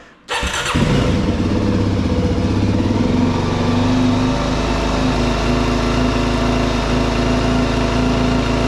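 Suzuki DRZ400S single-cylinder four-stroke engine started on its electric starter: a brief crank, and it catches in under a second. It runs a little unevenly at first, then settles to a steady idle about three seconds in.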